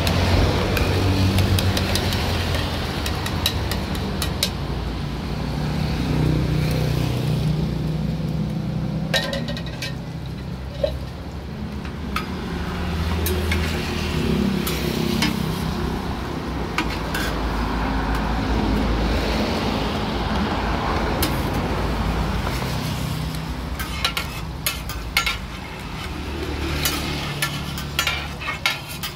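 Martabak frying in oil on a large flat iron griddle: the oil sizzles while metal spatulas scrape and tap against the pan, with a few sharp clinks about nine seconds in and many more near the end. A low steady rumble runs underneath.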